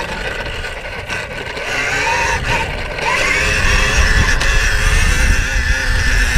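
KTM Freeride E electric dirt bike's motor whining under throttle, its pitch gliding up and down with the throttle, over a heavy wind rumble on the helmet camera. The whine gets louder about three seconds in as the bike is pulled up into a wheelie.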